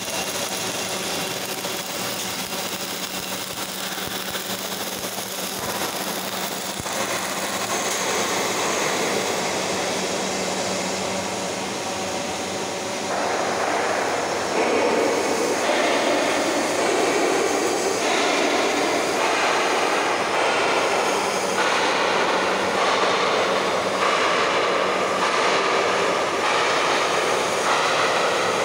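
Robotic wire-fed (MIG/MAG) arc welding on a steel pipe: a steady crackling, hissing arc over factory noise, growing louder about halfway through.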